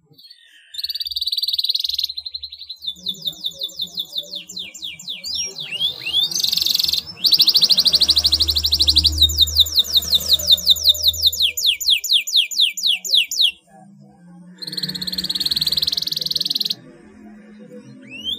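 Domestic canary singing a long, full song: runs of rapidly repeated high notes, fast buzzing trills and a few short rising whistles. The song starts about a second in and breaks briefly about two-thirds of the way through.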